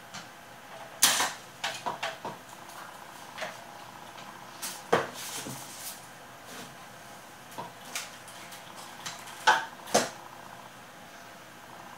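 Scattered sharp clicks and knocks of hand tools and the reel-to-reel deck's preamp circuit board being handled while a transistor is desoldered, with louder clicks about a second in and twice near the end.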